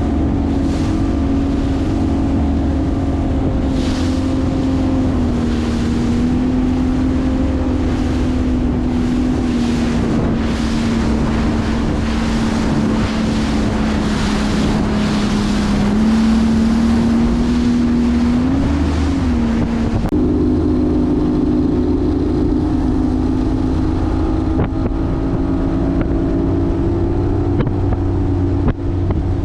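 Bass boat outboard motor running at speed: a steady engine drone that sags and rises a little in pitch and steps slightly higher about two-thirds through, with wind buffeting the microphone.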